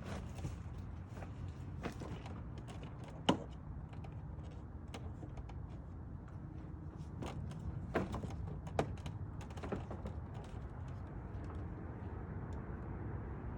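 Scattered sharp clicks and knocks of plastic parts being handled and pressed together as an aftermarket grille is fitted into a car's front bumper cover. The sharpest knock comes about three seconds in and a few more follow around eight to ten seconds in, over a steady low hum.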